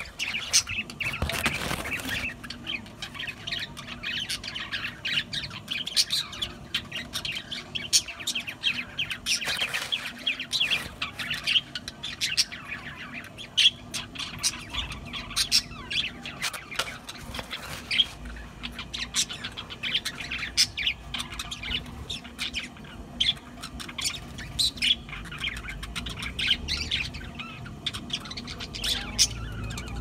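A flock of budgerigars chattering: a continuous stream of many short, overlapping chirps and calls.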